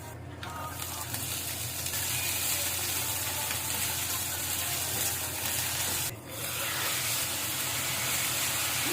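Food sizzling steadily as it fries in a pan, with a brief drop about six seconds in.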